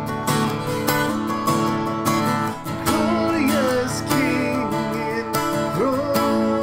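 Acoustic guitar strummed in a steady rhythm, with a man's voice singing a slow worship song over it from about three seconds in.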